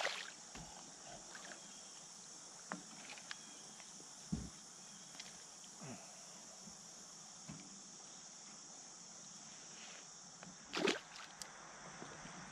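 A small hooked smallmouth bass splashing at the water's surface on the line at the start, then faint scattered knocks and clicks of tackle against the plastic kayak over a steady high hiss, with one louder brief noise near the end.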